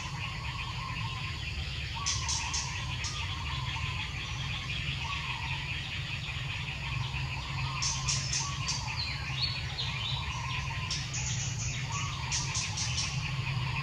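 Birds calling outdoors: a short call repeats about every second or two, with quick runs of high chirps now and then, over a steady low hum.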